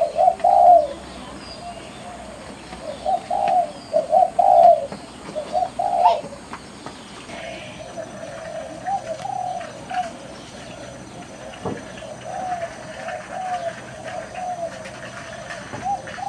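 Doves cooing in repeated phrases: several loud phrases in the first six seconds, then a longer, softer run of cooing.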